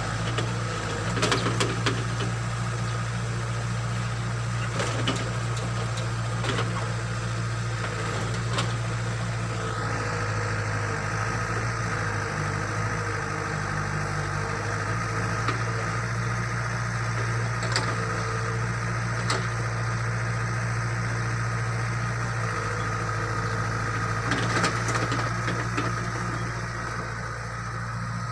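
Backhoe excavator's diesel engine running steadily, with a low hum and scattered sharp knocks and clanks as the machine is worked.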